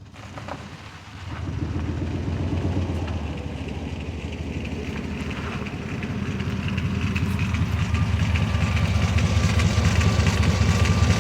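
Chevy Express van's engine running. The sound comes up sharply about a second in and grows steadily louder.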